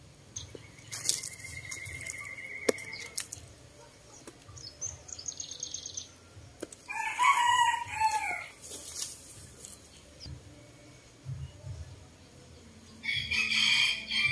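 A rooster crowing about halfway through, with a second loud call near the end, over faint small-bird chirps and a few sharp clicks in the first few seconds.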